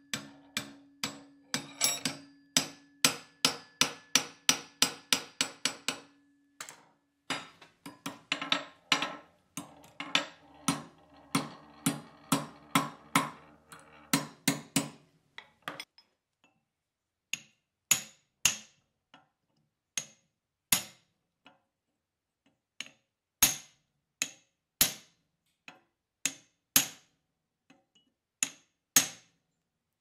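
Hammer blows on steel held in a vise. First comes a rapid run of about three to four strikes a second, with the work ringing under the first few seconds. About halfway through the blows change to slower single taps, about one a second.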